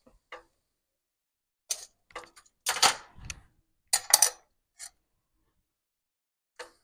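A few irregular sharp clicks and clatters at the frying pan while a poori deep-fries in hot oil. The loudest cluster comes near the middle, with quiet gaps between the sounds.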